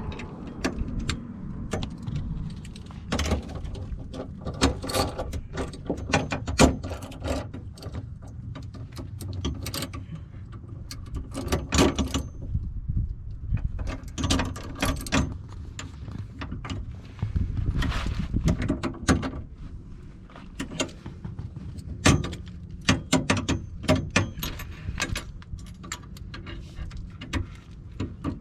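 Hand tools clinking and clanking against metal parts while bolts are worked on a car's rear subframe. Irregular sharp knocks and clicks come in clusters over a low background rumble.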